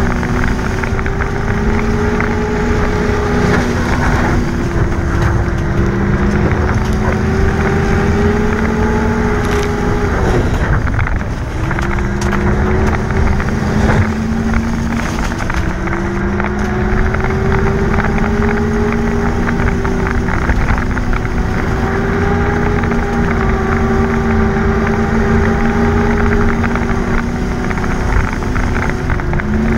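Race car engine heard from inside the cab, running hard and steady around the track. Its pitch rises and falls a little, dips briefly about eleven seconds in as the throttle lifts, then picks back up.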